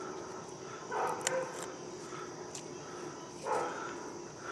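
Two short, muffled vocal sounds, about a second in and again about three and a half seconds in, over a steady faint hiss, with two faint clicks between them.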